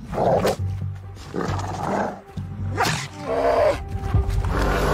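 Brown bear growling in repeated short, angry bursts as a wolf harasses it, over background music.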